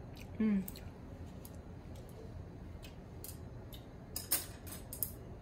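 Someone chewing a mouthful of braised fish head: faint wet mouth clicks and smacks, with a few louder ones about four seconds in, and a short voiced 'mm' about half a second in.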